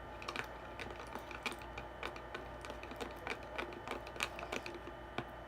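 Spoon stirring a homemade slime mixture in a container, with irregular clicks and taps of the spoon against the container, several a second.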